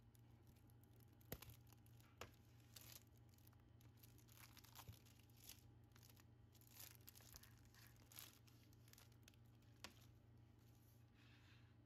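Thin plastic shrink-wrap being torn and crinkled off a plastic CD jewel case: faint, irregular crackling with a few sharper clicks.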